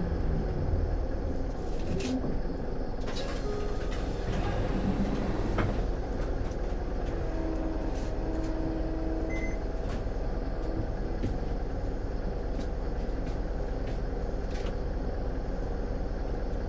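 Cabin sound of an Isuzu Erga city bus (2PG-LV290N3) under way: the diesel engine and drivetrain rumble steadily. The engine note eases down a little in the first six seconds, then holds a steady drone, with scattered small clicks and rattles from the cabin.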